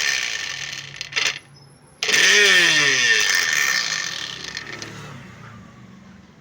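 Mixer grinder spinning its jar blade in short pulses. The motor runs loud and winds down with a falling pitch, a click comes about a second in, then it is briefly quiet. It starts abruptly again about two seconds in and slowly winds down. The noise is very loud, which the owner puts down to play in the jar's worn bush.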